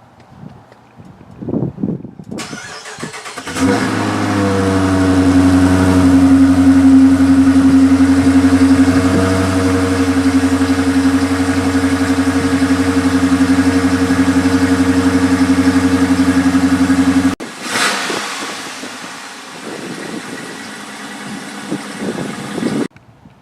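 A 2015 Dodge Challenger R/T's 5.7-litre Hemi V8 cranking and starting about two seconds in. Its idle comes down from a higher pitch and settles into a steady idle, which cuts off suddenly about two-thirds of the way through. A shorter, noisier stretch of engine and exhaust sound follows.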